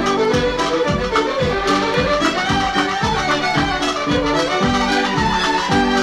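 Irish céilí band playing a fast reel from a 1958 record, fiddles and accordion carrying the melody together over a steady beat.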